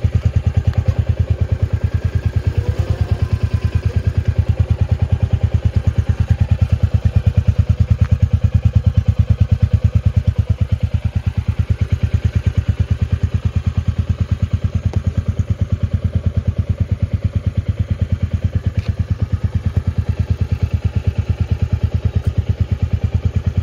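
New Royal Enfield Classic 350's single-cylinder engine idling steadily through its stock silencer, with an even 'duk duk duk' beat.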